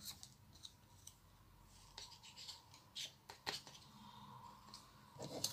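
Faint rustling of small paper squares being handled and pressed into the compartments of a small wooden crate, with a few short scratchy taps and clicks.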